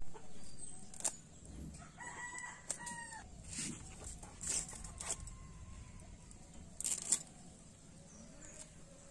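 A rooster crows once, about two seconds in, with a held call of about a second that drops at the end. Around it are sharp scrapes and clicks of small fish being scaled against a curved blade, the loudest of them about seven seconds in.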